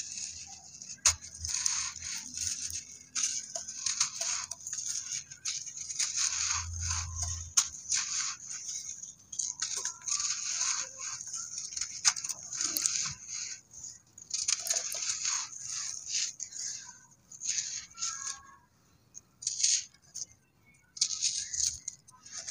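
Dry sand-cement bowls being crushed and crumbled by hand: gritty crunching and grainy rustling in irregular spurts with short pauses, and a few sharp clicks as pieces snap off.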